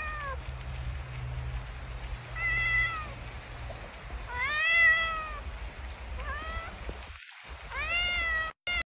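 A cat meowing again and again: one call trailing off at the start, then about four more, each rising and then falling in pitch, the one about five seconds in the loudest.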